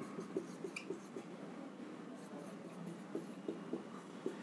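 Marker writing on a whiteboard: a scatter of faint, short squeaks and taps as the tip moves across the board.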